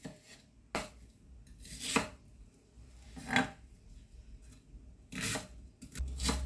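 Chef's knife cutting an onion on a wooden cutting board: about five separate strokes, each ending in a sharp knock of the blade on the board, a second or two apart.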